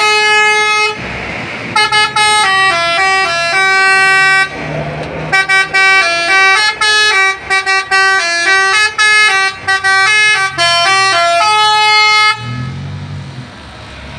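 Basuri 'telolet' bus horn, a multi-tone musical air horn, playing a quick tune of stepping notes with short breaks between phrases. It stops about twelve seconds in, leaving a quieter low rumble.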